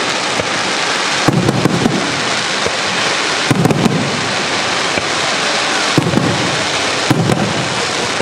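Fireworks display: clusters of sharp aerial shell bursts every couple of seconds over a steady dense hiss.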